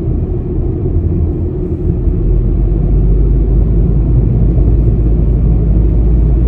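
A car being driven, heard from inside the cabin: a steady low engine and road rumble that gets a little louder about two seconds in.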